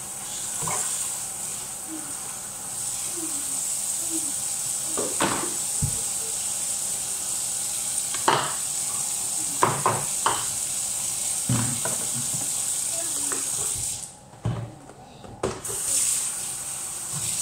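Kitchen tap running steadily into a stainless steel sink while a plastic basin and dishes are rinsed and handled, with several knocks and clatters of dishes. The rush of water drops away for about a second and a half near the end, then returns.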